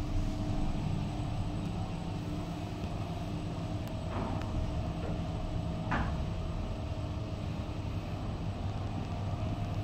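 Schindler traction elevator car travelling down between floors: a steady low rumble of the ride with a faint steady hum. Two short, brighter sounds come about four and six seconds in.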